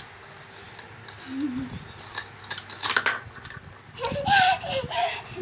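Sharp clicks and snips of cutting, bunched together about three seconds in, with a short high-pitched voice sound around four to five seconds in.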